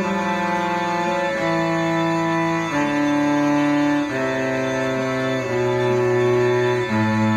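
Cello played with the bow: long sustained notes, each held about a second and a half, stepping down in pitch one after another.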